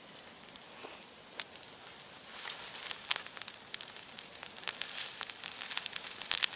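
Bonfire crackling and hissing, with sharp pops that come thicker and louder from about two seconds in.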